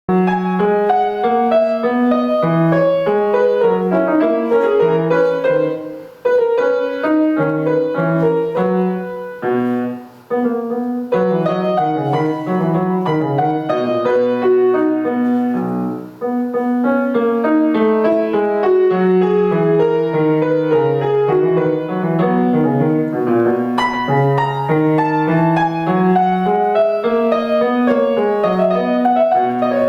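Piano playing a classical piece: a moving bass line under a melody in many quick notes, with brief breaths in the sound about six, ten and sixteen seconds in.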